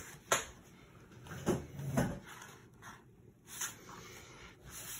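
Paper journal being handled on a table: a few soft rustles and taps as the cover is opened and the pages are pressed flat, with one sharper tap just after the start.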